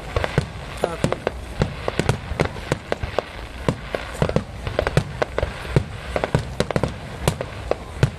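Aerial fireworks shells exploding in a display: many sharp bangs and crackles in quick, irregular succession, several a second.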